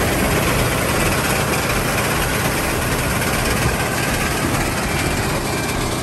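Rice threshing machine running steadily while bundles of rice stalks are held into its hopper to strip the grain.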